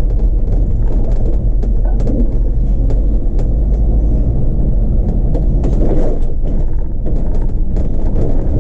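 Solaris Urbino 18 articulated city bus on the move, heard from inside: a loud steady low rumble with light rattles and clicks all through.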